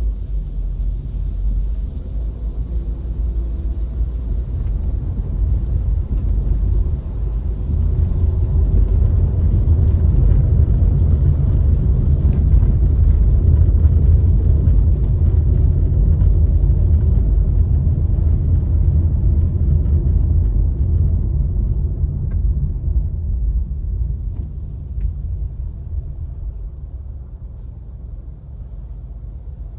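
Car driving: a steady low rumble of road and engine noise that grows louder through the middle and eases off toward the end.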